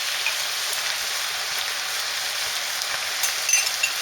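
Pork mince and tomato meat sauce sizzling in the pan, just after tomato puree dissolved in water has gone in: a steady hiss, with a few light clicks near the end.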